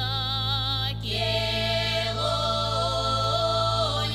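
Mordovian women's folk ensemble singing: one woman's voice with a wide vibrato, then about a second in the other women join, holding long notes in several parts at once in the Mordovian many-voiced style.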